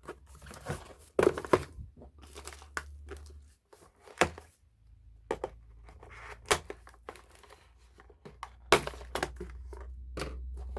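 Cardboard and plastic packaging rustling and crinkling, with many sharp clicks and snaps as plastic retaining clips are worked loose to free a toy truck from its box.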